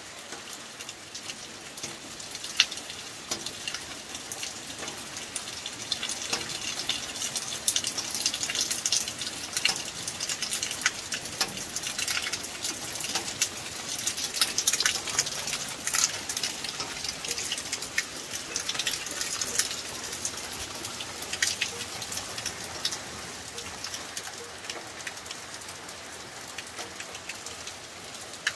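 Steady rain falling, a constant hiss with many sharp drop impacts tapping close by. It grows somewhat heavier through the middle stretch, then eases a little.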